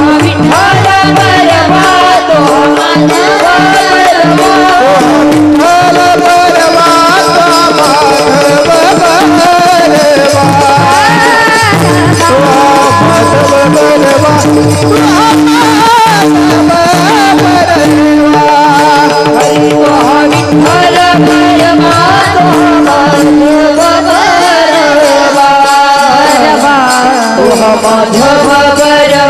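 Marathi devotional kirtan singing of the panchpadi, a voice carrying a bending, ornamented melody over a steady held drone note and rhythmic drum accompaniment.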